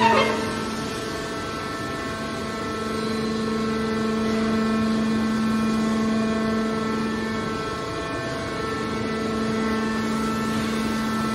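Hydraulic scrap metal baler's power unit running: a steady droning hum from its motor and hydraulic pump, with a short metal knock right at the start.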